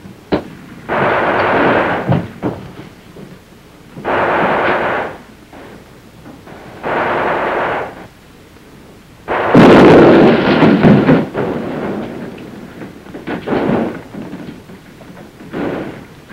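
Three bursts of gunfire about a second long each, then a loud blast about nine and a half seconds in, dying away over a couple of seconds: a demolition charge blowing a hole through a building wall. A few shorter bursts of fire follow near the end.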